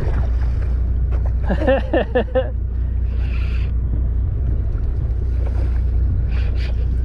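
Fishing boat's engine running with a steady low rumble, with wind on the microphone. About a second and a half in comes a short pitched cry, repeated four times in quick succession.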